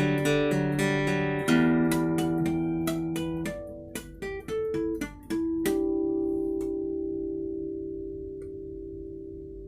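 Ibanez AEL40SE acoustic-electric guitar with a solid spruce top and flamed sycamore back and sides, playing a run of plucked notes and chords. About halfway through it ends on a chord that rings out and slowly fades away.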